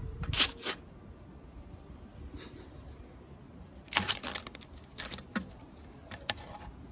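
A cat swatting at a leaf with its claws, making short rustling and scraping sounds. There is one quick cluster near the start, then several more from about four seconds in.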